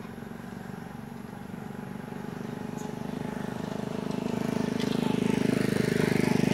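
A motor vehicle's engine approaching, its steady drone growing louder and loudest near the end.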